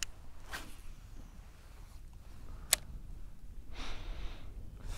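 Low wind rumble on an action-camera microphone, with two soft breathy hisses and a single sharp click a little past the middle.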